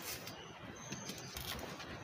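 Handling noise from an under-seat subwoofer's plastic enclosure being turned over by hand on a cardboard-covered bench: soft knocks and rustles over a steady hiss, with a short high chirp about a second in.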